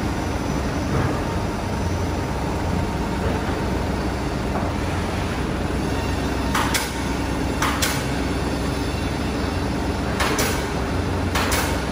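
Steady low machinery drone with four short hissing bursts, two about two-thirds of the way through and two near the end.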